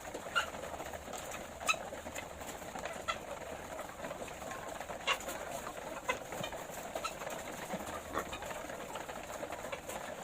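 A flock of layer hens murmuring and clucking, with short sharp sounds scattered through it every second or two.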